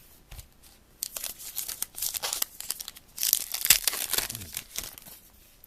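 Trading card pack wrapper being torn open and crinkled in the hands, a run of crackling rustles that starts about a second in and is loudest in the middle.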